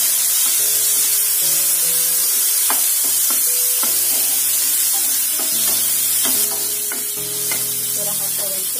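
Onions, curry leaves and chopped tomato sizzling in hot oil in a non-stick frying pan while a spatula stirs them, with occasional clicks of the spatula against the pan. Soft background music plays underneath.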